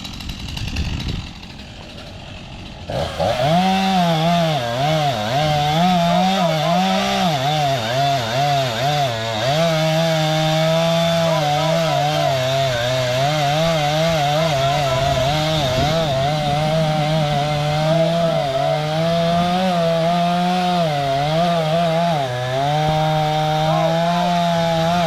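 STIHL two-stroke chainsaw, quieter for the first few seconds, then run at full throttle from about three seconds in, cutting into a tree trunk. Its pitch wavers and dips repeatedly as the chain loads up in the wood.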